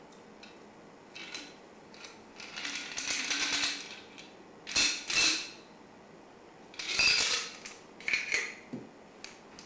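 Ice rattling and clinking against the metal of a cocktail shaker in several short bursts as the shaker is jiggled to pour out the last of the drink.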